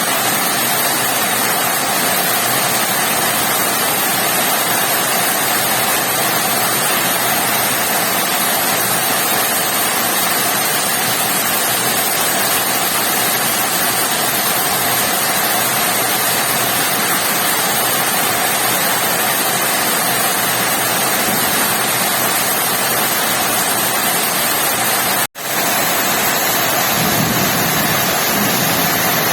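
Heavy rain falling steadily in a dense, even hiss, cut off for a split second a few seconds before the end.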